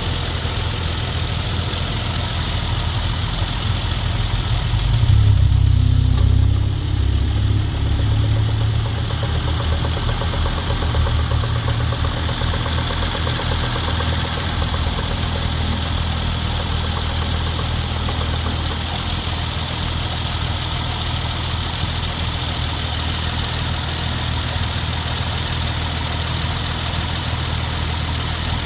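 Hyundai Genesis Coupe 3.8 V6 idling steadily, with a rapid knocking that comes in about five seconds in, is loudest for a few seconds, then dies away over roughly ten seconds back to a plain idle. The owner suspects something driven by the auxiliary belt, such as the A/C compressor, rather than the engine itself.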